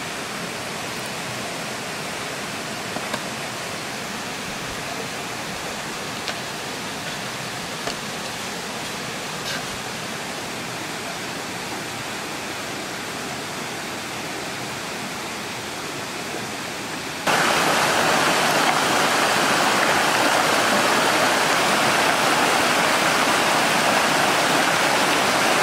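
Mountain river rushing over rocks, a steady rush of water. About seventeen seconds in it suddenly becomes much louder, the rapids heard up close. A few faint clicks sit in the quieter first part.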